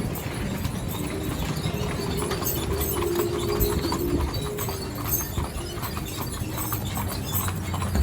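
Horses' hooves clip-clopping steadily as a team pulls a stagecoach, heard from the moving coach with a low rumble underneath.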